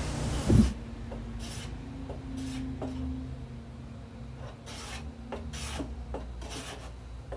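Hand block plane shaving the edge of a wooden board: a series of short scraping strokes at irregular spacing.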